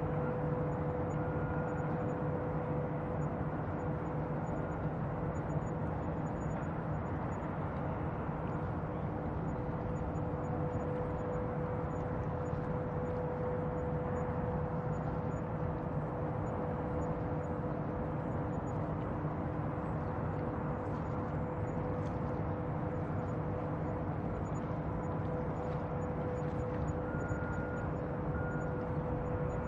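Bayside ambience: a continuous low rumble with a steady droning hum and no distinct events.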